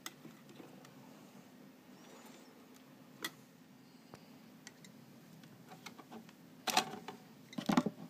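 Small clicks and taps from handling a circuit board, wires and needle-nose pliers inside a steel amplifier chassis. There is a sharper click about three seconds in, and two louder bursts of knocking and rustling near the end.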